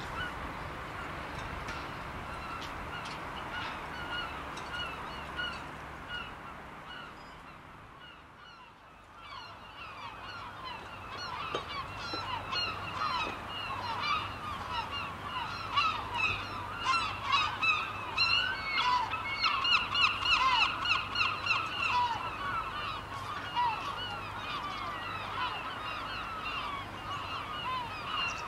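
A flock of birds calling: many short, overlapping calls, faint at first, then thicker and louder from about ten seconds in, over a low steady hum.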